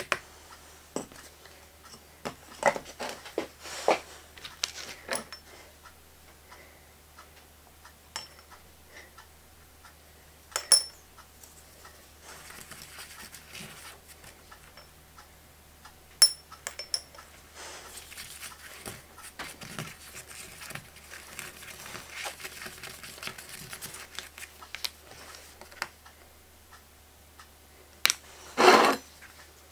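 Small metal spoon clinking and scraping against a plastic bottle cap while stirring silver-soldering flux powder, with scattered light taps and a louder clatter near the end.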